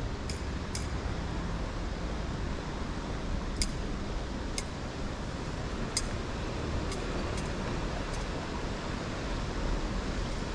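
Steady outdoor street noise with a low rumble, and about eight sharp, high ticks scattered irregularly through it.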